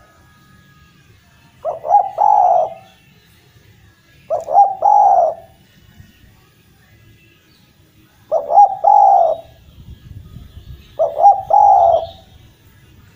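Spotted dove (Javanese derkuku) cooing: four phrases a few seconds apart, each about a second long, two short notes followed by a longer coo.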